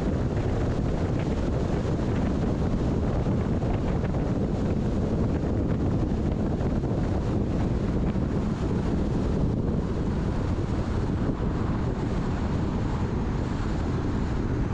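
Steady road and wind noise of a car driving: a constant low rumble of tyres and air rushing past.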